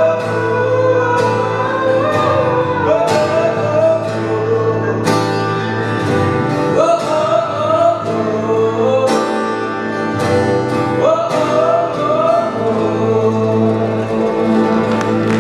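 A folk song played live on two acoustic guitars, strummed at an even pulse, with a man singing a long, gliding melody over the chords.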